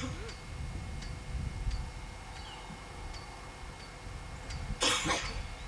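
A single shot from a .38 revolver about five seconds in, a short sharp crack with a brief tail, over a low steady rumble.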